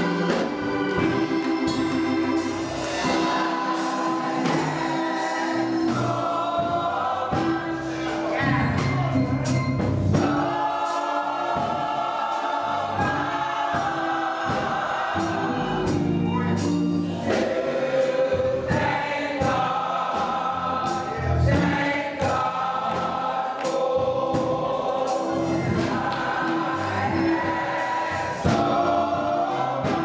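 Gospel choir of mixed men's and women's voices singing together, with organ accompaniment and a steady beat of sharp percussion hits.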